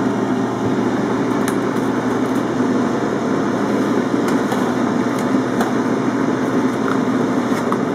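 Steady whirr of a Britânia BFR2100P air fryer oven's fan, running while the oven is open mid-cook. A few light clinks come from the wire rack as it is pulled out.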